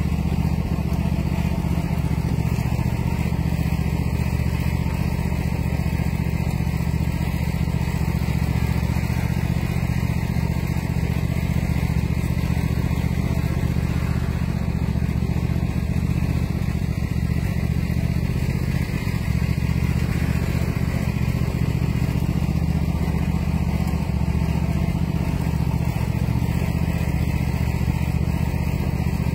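Small engine running at a steady speed, powering a sugar cane mill as cane is fed through its rollers.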